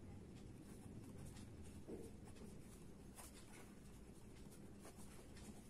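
Pen writing on ruled notebook paper: faint, irregular scratching strokes.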